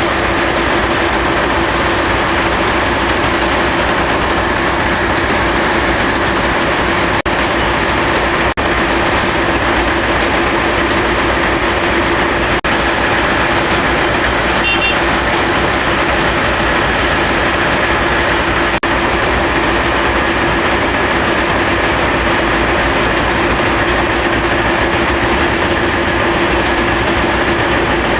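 Bauxite ore processing machinery running steadily: a loud, continuous mechanical din with a steady hum under it.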